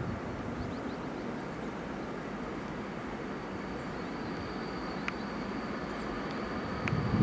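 ČD Cargo class 230 electric locomotive approaching with a freight train of open wagons: a steady rumble of the train, growing slightly louder. A faint steady high whine sets in about halfway, and a couple of sharp clicks come near the end.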